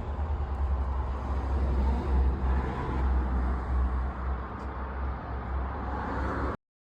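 Motor vehicle running, a steady low rumble with road-like noise over it, which cuts off suddenly near the end.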